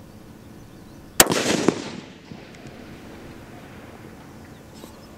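A single shot from a bolt-action precision rifle fitted with a muzzle brake, about a second in, followed by a rolling echo that dies away over about a second.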